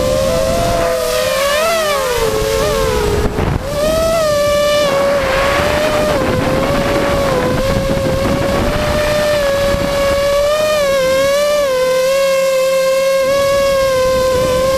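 An engine running steadily at high speed, its pitch wavering slightly up and down, with a brief dip and pitch change about three seconds in.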